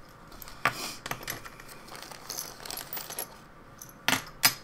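Small metal parts from a 3D printer kit's hardware bag clinking as they are handled and sorted by hand: a few scattered clicks, then two sharper clinks about half a second apart near the end.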